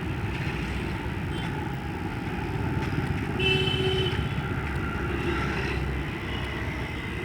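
Steady road rumble from a motorbike ride through traffic, with a short beep about three and a half seconds in.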